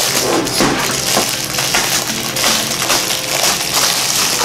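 Clear plastic wrapping crinkling and crackling continuously as it is handled and pulled off a new tripod's parts.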